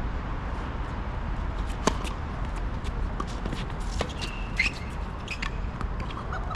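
Tennis play on a court: sharp ball strikes about 2 s and 4.5 s in, with smaller knocks, footsteps and a brief squeak near the second strike, over a steady low rumble.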